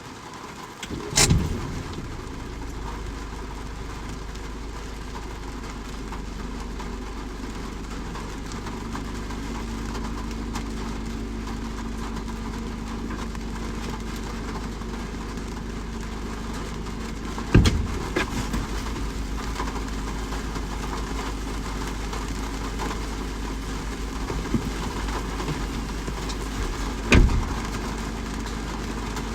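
Steady rain hiss with a low, steady rumble underneath, like a distant engine idling, and a faint hum joining about a third of the way in. Three sharp knocks or heavy drops stand out: about a second in, just past halfway, and near the end.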